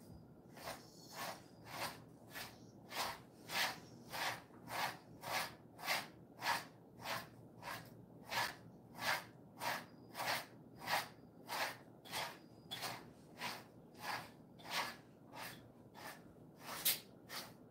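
Grooming brush stroking through a Jindo dog's coat in a steady rhythm of about two short scratchy strokes a second.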